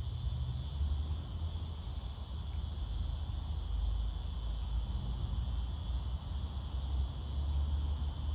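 Steady buzzing chorus of insects that holds an even, high pitch without a break, over a constant low rumble.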